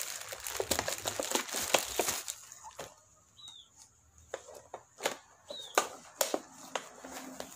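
Plastic packaging crinkling as a courier pouch is opened and clear plastic parts bags are pulled out and handled: dense rustling for about the first two seconds, then quieter, scattered crinkles.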